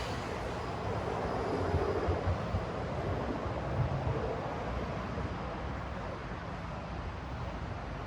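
City street traffic noise: a steady wash of passing vehicles with a low engine rumble.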